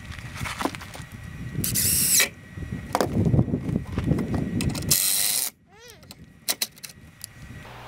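Wind rumbling on the microphone, with knocks and clicks of cordless tools being handled on a wooden stud frame. Two short, loud high-pitched bursts come about two and five seconds in, and the sound drops away suddenly just after the second.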